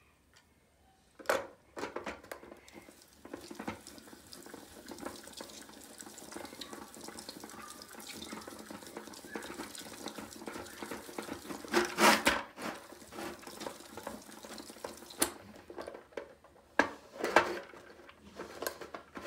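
Sticky wet slime being stirred in a plastic cup by a toy slime-maker's hand-cranked mixer, a continuous squelching churn. Sharp plastic knocks and clatters come as the mixer lid is set on and lifted, loudest about twelve seconds in and again near the end.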